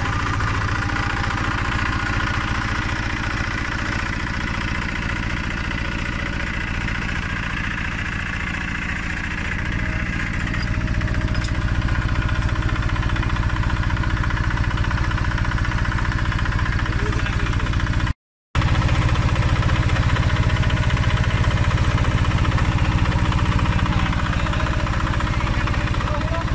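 Drilling rig's engine running steadily, a little louder about ten seconds in, with a brief break in the sound about two-thirds of the way through.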